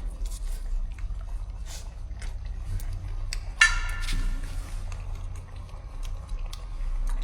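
A pot of pork ribs and potatoes simmering on a low flame, with scattered small clicks and clinks over a steady low hum. About three and a half seconds in comes one brief high-pitched ringing tone.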